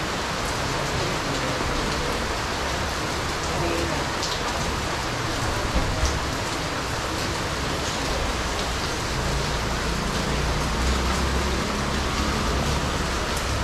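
Heavy rain pouring steadily, a dense even hiss of rain on surfaces, with a low rumble beneath it.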